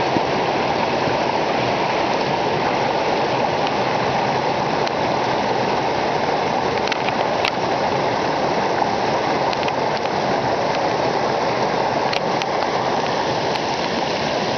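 Mountain stream rushing over rocks and small cascades: a steady, loud rush of white water.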